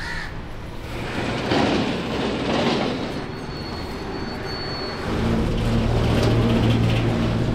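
A large vehicle's engine running, with a steady hum that grows louder about five seconds in, over rustling and swishing as rope is hauled tight across a truck's tarpaulin.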